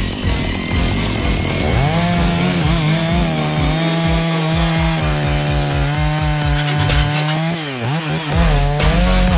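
Chainsaw cutting into a large burnt black oak trunk. Its engine note dips and recovers several times under load in the cut, with a deeper dip near the end.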